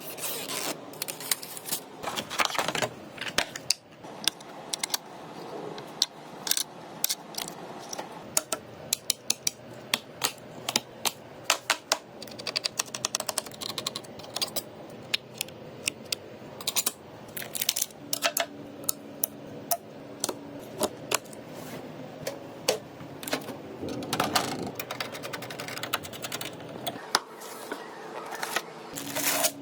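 Irregular sharp clicks and clacks of computer parts being handled and fitted together.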